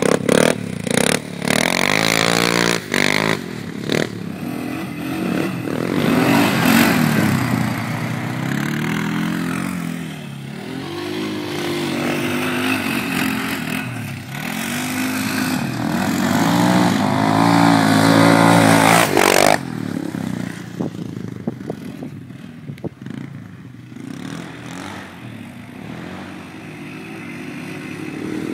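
ATV engine being ridden hard, revving up and down over and over, its pitch rising and falling with the throttle. About two-thirds of the way through it drops to quieter, lower running.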